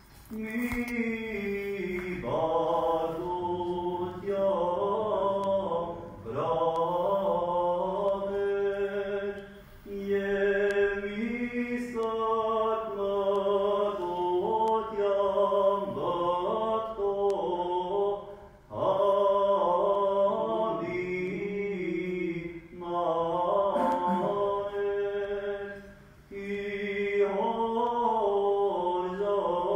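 Armenian Apostolic requiem chant sung by clergy. It moves in long melismatic phrases, each broken by a brief pause for breath.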